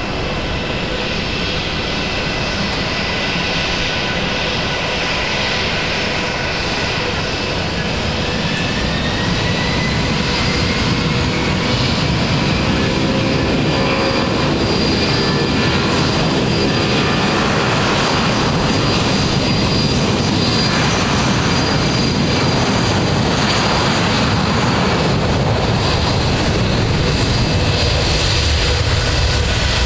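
Jet engines of a taxiing Boeing 757 airliner, a steady whine over a low rumble. One tone rises in pitch and the sound grows a little louder about nine seconds in.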